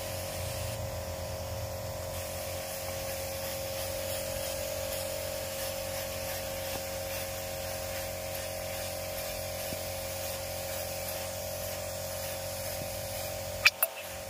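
Paint being sprayed: a steady spraying hiss over a steady hum, with two sharp clicks close together near the end.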